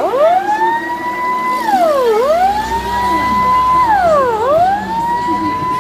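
Loud emergency-vehicle siren. Each cycle rises quickly to a high note, holds it for about a second, then drops and climbs again, repeating roughly every two seconds.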